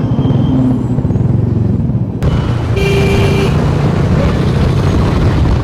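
Bajaj Dominar 400 motorcycle on the move, its engine and the wind making a steady low noise, with a vehicle horn sounding briefly about three seconds in.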